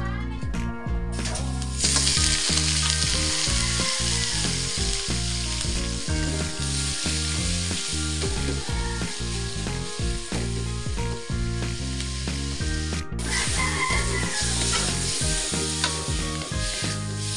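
Cubes of raw pork frying in a hot, oiled stainless-steel wok: a loud, steady sizzle that sets in about two seconds in. Near the end the meat is stirred with a wooden spatula.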